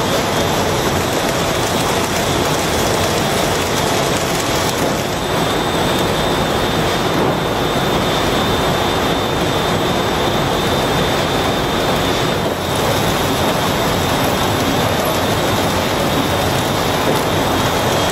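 Packaging-line conveyors and automated handling machinery running steadily, giving a dense, continuous factory noise with a faint high whine on top.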